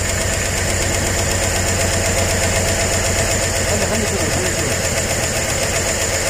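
Chevrolet Tahoe V8 idling steadily with a valve cover off. It runs rough, misfiring on some cylinders whose valves are not yet working.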